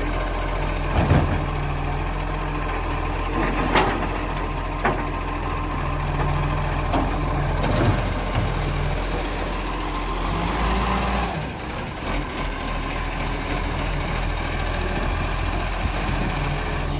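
Side-loader garbage truck engine running while its hydraulic lift arm empties wheelie bins, with several loud clanks as the bins are tipped and set back down. A short air-brake hiss comes about eleven seconds in.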